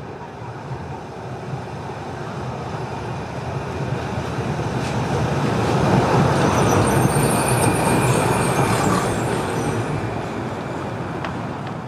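An articulated tram rolls past close by on street tracks, its wheel-on-rail rumble building to a peak about six to nine seconds in, with a faint high squeal from the wheels, then fading as a car follows behind.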